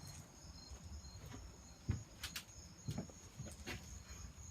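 Faint, steady high-pitched chirring of crickets, with a few soft clicks and knocks.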